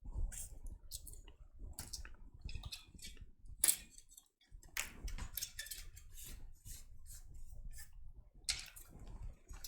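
Scattered small clicks and light knocks from hands handling parts and tools on a workbench, with one sharper click a little before the middle and a small cluster near the end.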